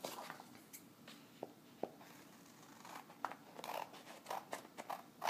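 Scissors snipping through a sheet of scrapbook paper, with the paper rustling as it is picked up and turned. The snips are faint and short, a few at first and more often in the second half.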